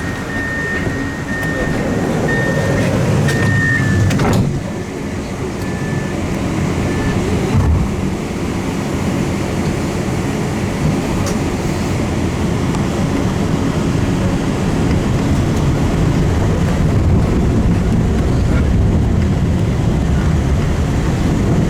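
Pesa tram running along its line, a steady low rumble that builds slowly after a brief dip about four seconds in. A run of short high beeps sounds in the first few seconds, with two more shortly after.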